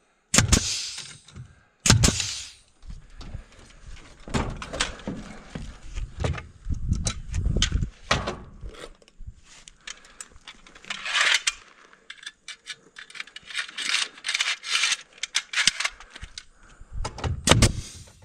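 Pneumatic framing nailer firing twice, near the start and about two seconds in, then irregular clatter and knocks of tools and lumber being handled. Near the end, short sharp bursts as a cordless driver drives fasteners into a framing board.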